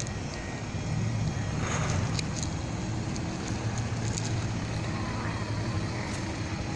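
Parking-lot traffic: vehicle engines running and cars moving nearby, a steady low hum with a few faint clicks.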